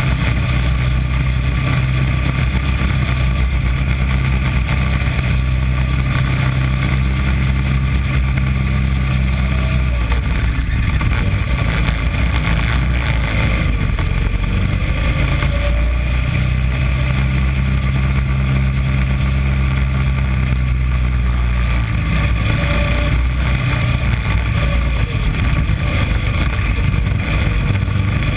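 Small engine of a mini Corvette race car running hard, heard from an onboard camera on the car with wind rushing over it. The engine note drops back about ten seconds in and again a little past twenty seconds as it lifts for corners, then picks up again.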